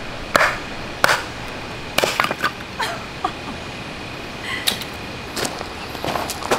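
Hardwood firewood being split: a run of sharp, irregularly spaced wooden knocks and chops.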